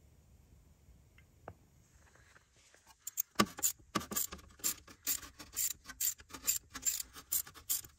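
Ratchet wrench clicking as it turns an exhaust manifold stud in the cylinder head: a steady run of sharp clicks, about three a second, starting about three seconds in.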